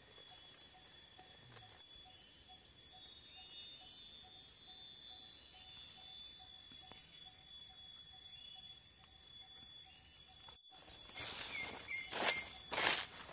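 Forest insects: a steady high-pitched insect drone with a faint note repeating a few times a second. The sound drops out briefly about eleven seconds in, and then footsteps rustle through dry leaf litter.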